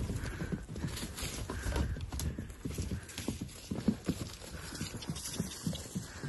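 Horses' hooves striking dry, packed earth as the horses trot and canter: an uneven run of thuds.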